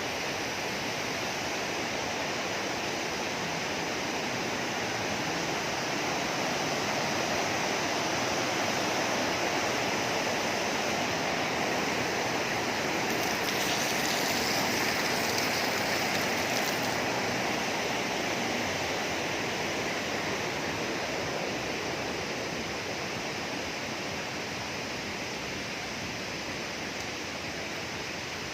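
River water rushing steadily over rocks, swelling a little in the middle.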